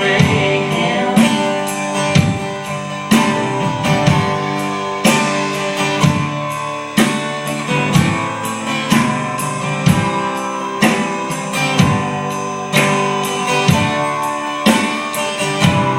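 Live band music: a guitar strumming chords to a steady beat in an instrumental passage, with a last sung word about a second in.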